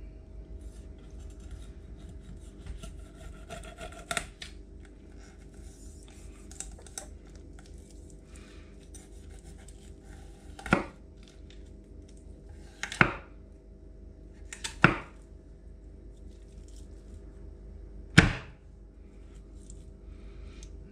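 Kitchen knife chopping through a trout's spine at the tail and knocking onto a wooden cutting board: a light knock, then four sharp chops a couple of seconds apart, over a steady background hum.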